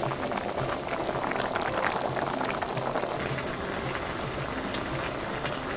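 Thick, spicy sundae jeongol (blood-sausage hot pot) boiling in a shallow pan, its bubbles popping and bubbling steadily.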